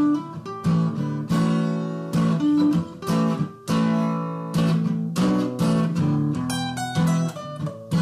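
Acoustic guitar strummed in a steady rhythm, about two strums a second, played as layered, overdubbed tracks.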